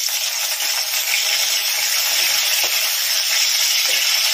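Chopped garlic sizzling in hot oil in a steel kadai, a steady frying hiss, with a few light scrapes and taps of a steel spatula stirring it.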